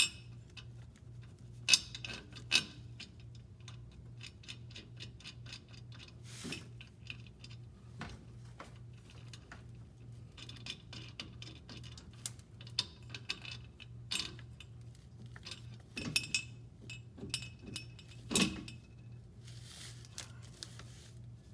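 Metal clinks, taps and knocks of bolts and hand tools against the exhaust flex pipe and downpipe flange as the bolts are fitted, with a run of quick small ticks about eight seconds in. A low steady hum runs underneath.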